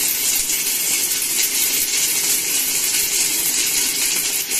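Steady crackling hiss of a stick-welding arc from a Sanrex 400 MMA DC inverter welder, burning a No. 10 electrode into thick steel plate at high current with the rod pressed down into the work.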